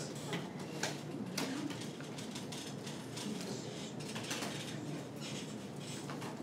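Classroom room noise: a steady background hiss with scattered light clicks and taps at irregular intervals.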